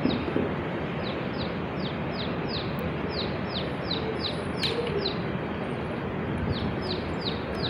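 A bird chirping repeatedly: short falling chirps about three a second, in a long run and then a shorter one after a brief pause, over a steady hiss.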